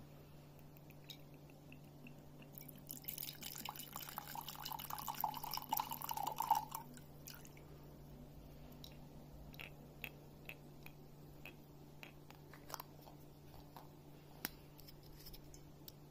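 Brandy poured from a glass bottle into a ceramic mug, a faint trickle lasting about four seconds from about three seconds in. Afterwards come a few light clicks and taps.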